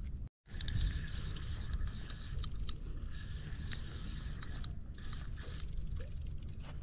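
Wind rumbling on the microphone with jacket fabric rustling against the camera and many small handling clicks and scrapes, after a brief dropout just after the start.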